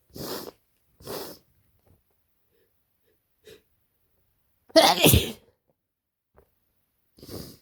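A person with a heavy head cold sneezing once, harshly and loudly, about five seconds in, with a voiced catch that falls in pitch through the blast. Two short noisy breaths come before it, and another comes near the end.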